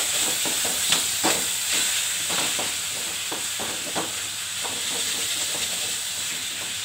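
Noodles sizzling in ghee in a metal wok over a gas flame: a steady frying hiss, with a wooden spatula scraping and knocking against the pan at irregular intervals as the noodles are tossed.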